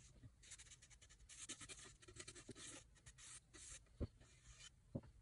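Faint, repeated swishing strokes of a foam brush drawn along wood, spreading stain. Two soft knocks come near the end.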